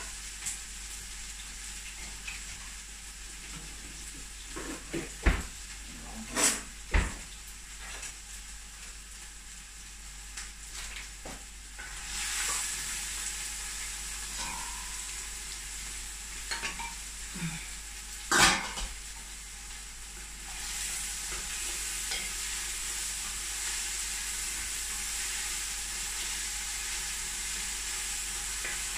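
Onions and whole spices frying in oil in a large stainless-steel pot: a steady sizzle, broken by a few sharp metal knocks and clinks of a spoon against the pot, the loudest about two-thirds of the way through. The sizzle grows louder a little after that.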